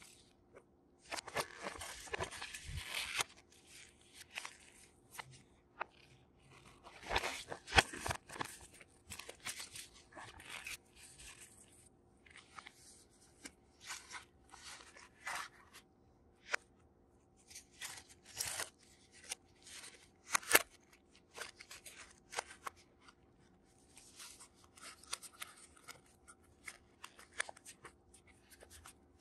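Paper leaflets and a thin cardboard sleeve from a smartphone box handled by gloved hands: the paper rustles and crinkles in irregular bursts, with sharp little clicks and taps of the card. A long rustle comes about a second in and the loudest handling about seven seconds in.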